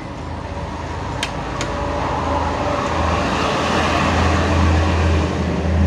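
A road vehicle's engine hum and noise swelling steadily louder as it passes, with two light clicks a little over a second in.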